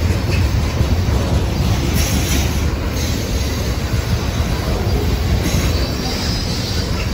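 Tank cars of a freight ethanol train rolling past at close range: a steady low rumble of steel wheels on rail, with a higher wheel squeal coming in about two seconds in and again near the end.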